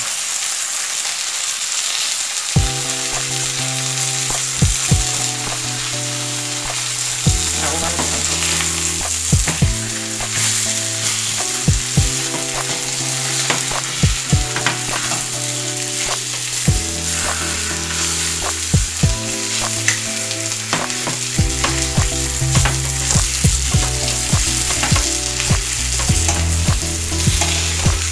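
Butter sizzling and spitting as flour-dredged chicken breasts fry in a stainless steel skillet, with a steady hiss and scattered sharp clicks of a metal fork against the pan as the pieces are turned.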